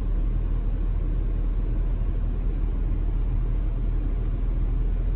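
A car engine idling, heard from inside the cabin as a steady low hum.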